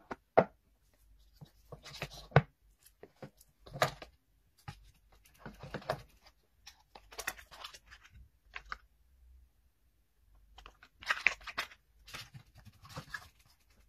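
White cardboard packaging being unpacked by hand: lids and inserts scraping, rustling and knocking as they are pulled out and set down on a table, in scattered bursts with sharp knocks near the start and a longer rustle about eleven seconds in.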